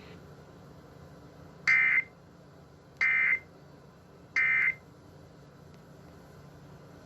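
Emergency Alert System end-of-message signal: three short bursts of SAME digital data tones, each about a third of a second long and spaced a little over a second apart, marking the end of the alert.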